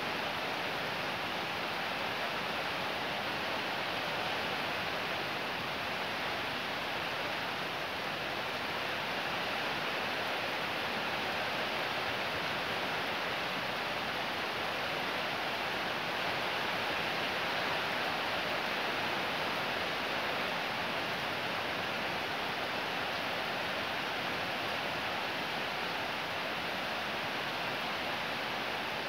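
Fairly heavy rain falling steadily, an even hiss without breaks or separate drips.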